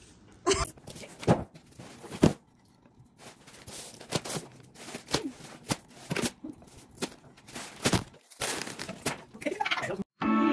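Plastic mailer bags crinkling and rustling as packages are handled, with scattered sharp knocks and thumps.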